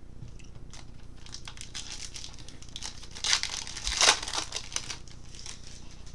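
Foil wrapper of a baseball card pack being torn open and crinkled, a run of crackling rustles that is loudest about three and four seconds in.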